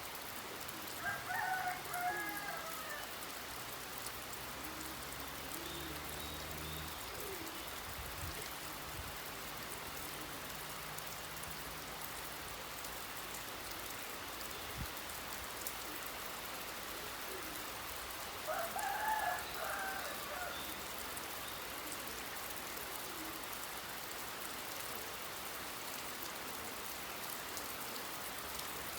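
Steady rain falling, with a bird calling twice, about eighteen seconds apart.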